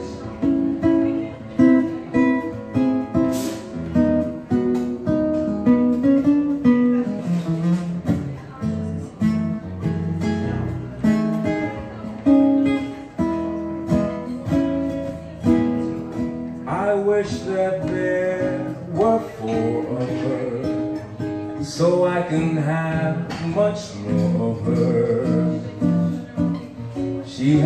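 Acoustic guitar playing an instrumental break in a swing jazz standard, with a continuous run of changing notes and chords.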